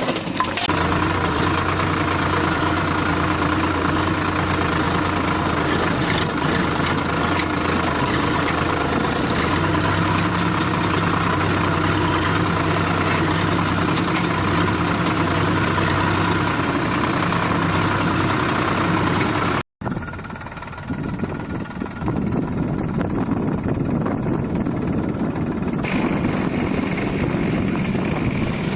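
Diesel engine of heavy machinery running steadily. Just before two-thirds of the way through, the sound drops out briefly and resumes as a duller engine sound.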